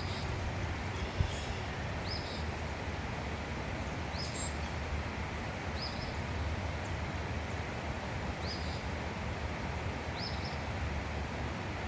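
A small bird repeating a short, high chirp about every two seconds, over a steady outdoor background rumble.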